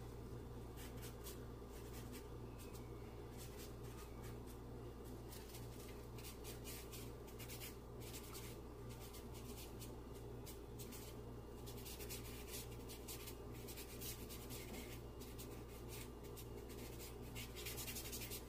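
Charcoal stick scratching and rubbing on drawing paper in quick, repeated shading strokes, which come thicker in the second half, over a steady low hum.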